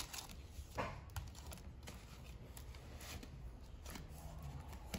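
Paper bills and a clear plastic cash envelope being handled: soft rustling with a few light clicks and crinkles, over a faint low hum.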